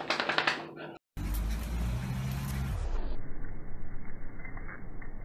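Outdoor street noise with a low vehicle engine hum, beginning about a second in after an abrupt cut. After another two seconds the hum drops away, leaving a dull, muffled background with faint taps.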